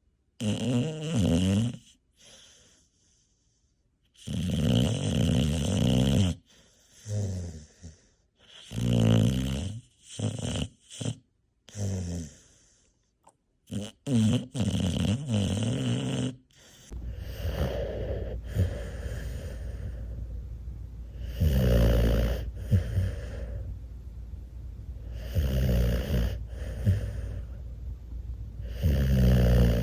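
Bully breed puppy snoring in her sleep, a run of separate snores each a second or two long. In the later part the snores come about every four seconds over a steady low hum.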